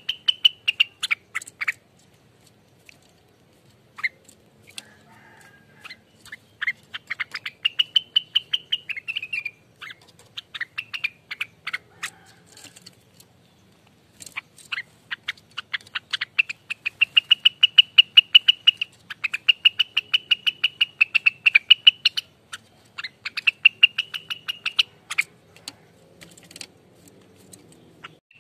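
Rengganis songbird singing its rapid, rattling 'ropel' song: fast trains of sharp repeated notes, many per second, in phrases of a few seconds with short pauses between them.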